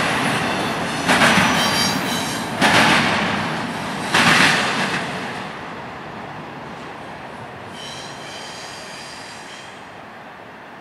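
Double-stack intermodal freight train's wheels clattering over the rails as its tail end rolls away, with three loud clanks in the first five seconds. The sound then fades, with a faint high wheel squeal near the end.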